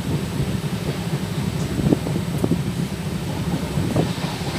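A passenger train running along the line, heard from an open coach window: a steady rumble of wheels on rail mixed with wind across the microphone. A few sharp wheel knocks over rail joints come about two seconds in and again near the end.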